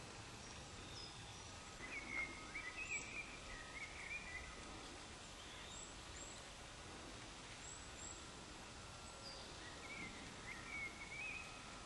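Small songbirds singing: short twittering phrases about two seconds in and again near the end, with scattered high chirps between them, over a low steady hiss.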